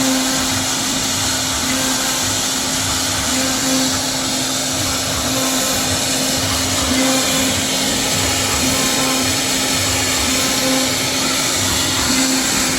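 CNC router spindle running steadily while cutting MDF: a constant motor hum under a broad, even hiss.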